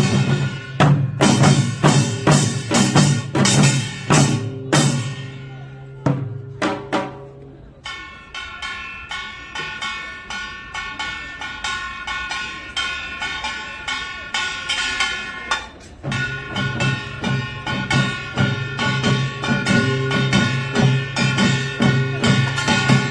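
Korean pungmul percussion ensemble playing: a fast run of drum strikes, easing into a quieter passage of steady ringing tones about 8 seconds in, then dense drumming again about 16 seconds in.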